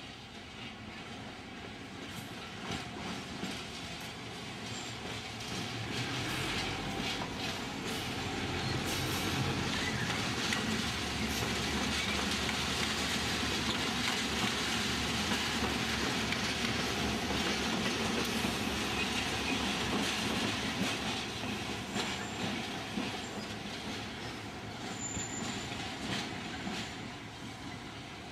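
Two RENFE class 319.2 diesel locomotives working in multiple pass by, their engines running, building to a peak as they go by and then fading. Wheels click over rail joints throughout, with brief squeals of the wheels on the curved track near the end.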